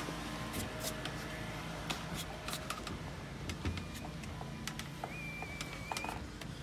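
Low steady background hum with scattered small clicks and knocks, the sort made by someone moving about on scaffolding while filming; a brief thin whistle sounds about five seconds in.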